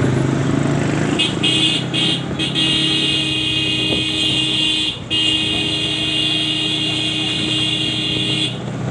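A vehicle horn sounds steadily for about seven seconds, starting about a second in, with three brief breaks. Underneath it is a steady low rumble of engine and road traffic.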